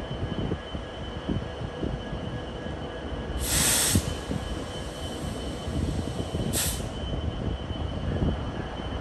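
Slow-moving BNSF EMD GP60 diesel locomotive and freight train rumbling along the track, with scattered knocks. Two sharp bursts of air hiss come through: a longer, louder one about three and a half seconds in, and a shorter one a few seconds later.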